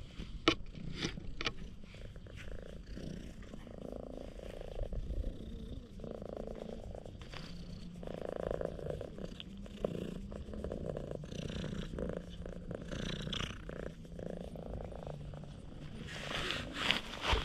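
A stray cat purring loudly and steadily while having its head scratched. A few sharp clicks sound in the first couple of seconds, and a brief noisy rustle comes near the end.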